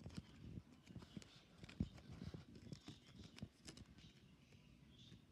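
Hands handling clear plastic packaging and a cardboard box: faint, irregular crinkling and tapping, with a soft thump about two seconds in.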